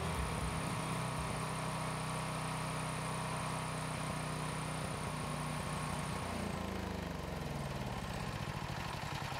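Ryobi 420cc electronic-fuel-injected generator engine running steadily, then about six seconds in its speed sags and wavers as the fuel runs out.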